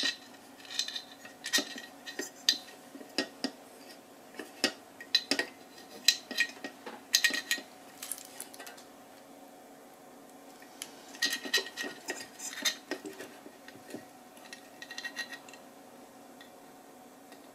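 Light metallic clicks and taps in irregular clusters as a soldering iron and wires are worked against the metal housing of an LED floodlight while a lead is soldered onto the LED chip. The clicks pause for a few seconds around the middle, over a faint steady hum.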